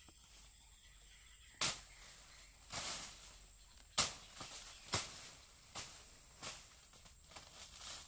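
Blade chopping into a banana trunk: a run of sharp, short strikes about one a second, starting about a second and a half in, as a wind-damaged banana plant is cut down.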